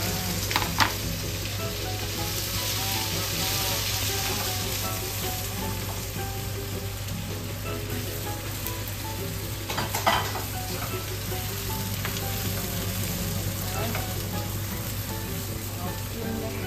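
Meatballs and sliced sausage sizzling in a hot nonstick wok, stirred with a spatula. There is a steady hiss throughout, with a couple of sharp knocks: one just under a second in and one about ten seconds in.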